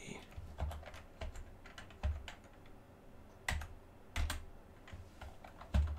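Computer keyboard keystrokes: a handful of separate, unhurried key taps with pauses between them.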